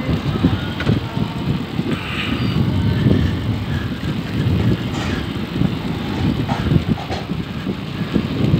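Wind buffeting the microphone of a phone carried on a moving bicycle: a low, uneven rumble.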